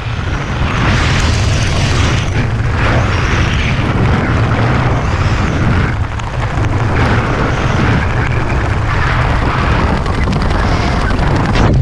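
Wind buffeting a skydiver's camera microphone under an open parachute canopy: a loud, steady low rumble with rushing that swells and eases, dipping briefly about halfway through.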